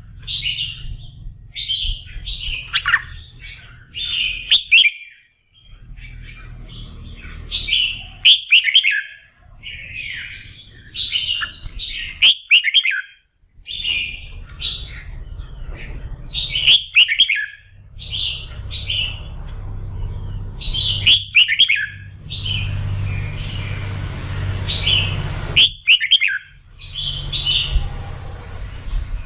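Red-whiskered bulbul singing: short, quick warbled phrases repeated every second or two, over a low background hum.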